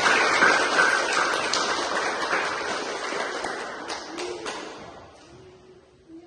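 A small group of people applauding, loudest at the start and dying away about five seconds in.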